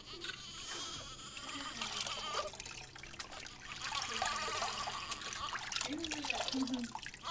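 Water trickling and splashing as a wet washcloth is rubbed over a newborn baby's hair at a sink.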